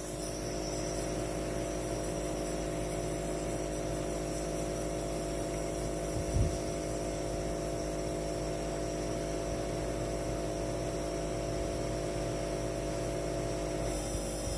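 Nebulizer compressor running with a steady electric hum during a breathing treatment. A short low thump comes about six seconds in.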